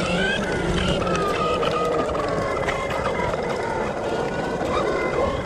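Redcat Kaiju 1/8-scale brushless RC monster truck running on asphalt: the electric motor's whine drops in pitch over the first second or so, then holds and wavers with the throttle, over the rumble of the tyres on the pavement.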